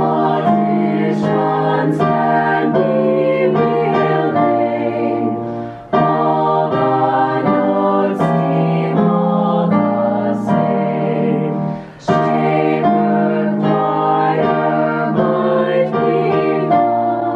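A small group of young women singing together in harmony at a choir callback audition, with brief breaks about six and twelve seconds in.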